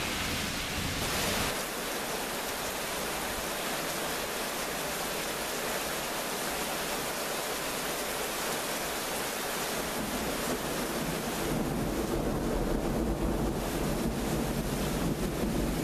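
Heavy thunderstorm rain and wind, a steady hiss. From a little past two-thirds through, gusts buffet the microphone with an uneven low rumble.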